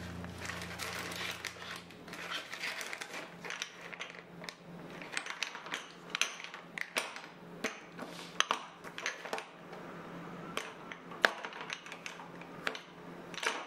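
Plastic food packets rustling and crinkling as they are pushed into a kitchen drawer, then a run of small sharp clicks and taps as the lidded spice jars beside them are moved and knock together.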